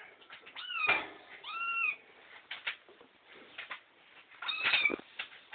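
Young kitten meowing three times, each meow rising and then falling in pitch, with light clicks and knocks in between.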